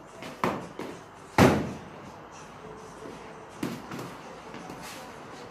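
Gloved strikes landing on the guards during kickboxing sparring: several sharp smacks, the loudest about a second and a half in, with a short echo after it.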